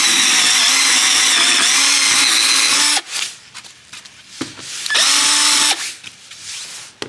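Power drill with a 5/16-inch bit boring holes into a wooden workbench for the repair stand's screw inserts: a steady motor whine for about three seconds, a few knocks, then a second short burst of drilling about five seconds in.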